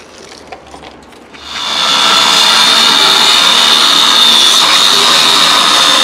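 Angle grinder cutting through a rusty steel beam. It comes in about a second and a half in and then runs steadily as a loud, high-pitched whine with a rasping grind.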